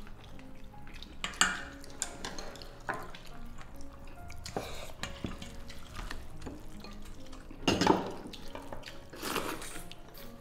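Spoons and chopsticks clinking and scraping against porcelain and stainless steel bowls while eating, in scattered short clicks, loudest about eight seconds in. Near the end a ladle lifts rice noodles out of soup, with liquid dripping and splashing back into the steel bowl.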